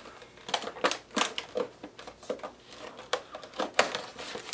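A small paperboard box being opened by hand: a quick, irregular run of clicks, taps and scrapes as the flaps are pulled open and the packaging inside is handled.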